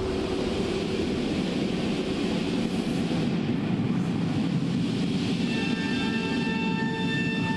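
Opening of a skater's free-skate program music: a low rumbling swell, joined about three-quarters of the way in by several held high notes.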